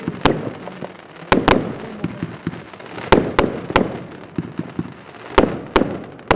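Fireworks going off: about nine sharp bangs in clusters of two or three, one cluster every second or two, over a steady crackle and the rumble of more fireworks.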